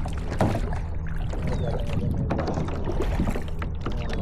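Kayak out on the water: scattered splashes and knocks over a steady low hum.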